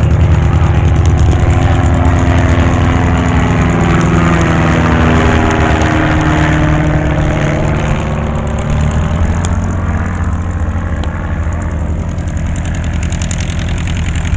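Engine drone of a small propeller plane passing low overhead, its pitch sliding downward as it goes by, then continuing somewhat quieter.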